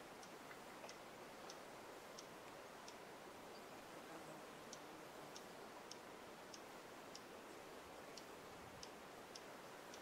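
A small songbird giving faint, high, thin chip calls, one about every half second to second, over a steady hiss.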